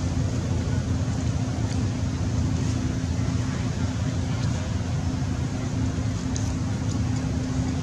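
A steady low rumble with a constant hum, unchanging throughout, with a few faint ticks above it.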